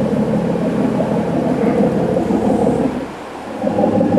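Loaded lobster boat's inboard engine running steadily at speed, a loud low drone that dips briefly about three seconds in. The engine is held at speed so that water does not backwash into the exhausts of the trap-laden boat.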